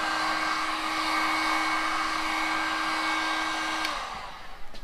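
Electric heat gun blowing, its fan running steadily with a constant whine, then switched off about four seconds in and winding down.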